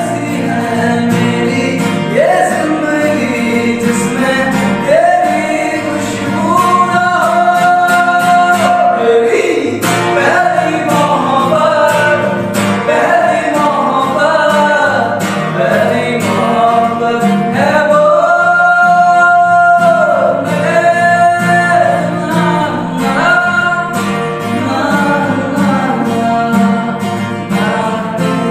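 A man singing with an acoustic guitar strummed in accompaniment; the voice holds long, slightly wavering notes over steady chords.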